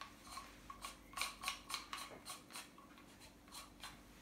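Plastic parts of a Minox daylight developing tank being turned by hand to wind its mechanism back: a run of soft clicks, about three a second, fainter in the second half.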